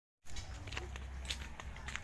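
Footsteps along a dirt garden path, a few light scuffs and crunches over a low steady rumble, starting abruptly just after the start.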